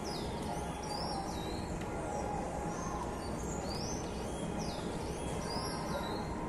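Small birds chirping over and over in short, high, sweeping notes, several a second, over a steady background rush.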